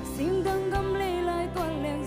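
A woman singing a slow Zomi-language song into a microphone, holding notes with vibrato, backed by a live band with drums and guitar.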